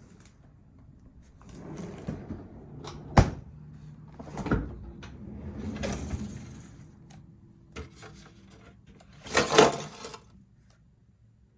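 Handling sounds at a refrigerator: rustling and several sharp knocks, the sharpest about three seconds in, then a louder clatter near the end, like a drawer or bin being opened and closed.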